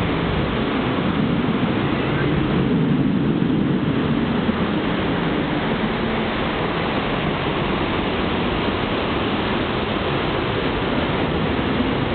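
Roar of a Blue Angels F/A-18 Hornet's jet engines as it dives, a steady rumbling rush that swells slightly a few seconds in.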